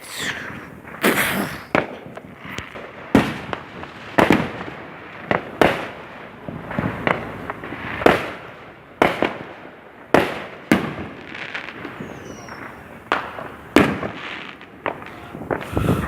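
Fireworks going off all around in an irregular string of sharp bangs and booms, about one a second, some close and loud, others farther off with a rolling echo.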